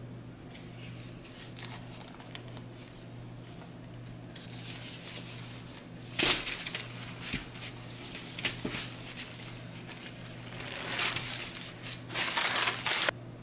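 Parchment paper and packaging crinkling and rustling as a rolled sheet of store-bought puff pastry is opened and unrolled flat. There is a loud rustle about six seconds in and denser rustling near the end, which cuts off suddenly.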